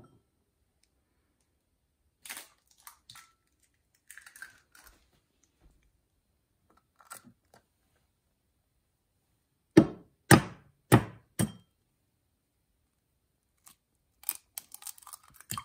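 Raw eggs being cracked: four loud, sharp taps of an egg against a hard edge about ten seconds in, then small crackling clicks of the shell being pulled apart over a ceramic bowl near the end, with a few faint clicks and taps earlier.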